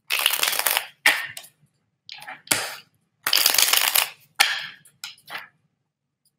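Tarot cards being shuffled by hand in about six short, rustling bursts with brief pauses between them.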